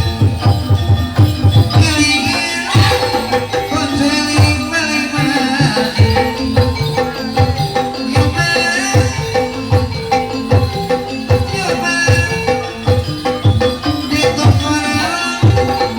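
Kuda lumping ensemble music: hand drums beat a steady rhythm of about two strokes a second under held melodic tones and a wavering higher melody line.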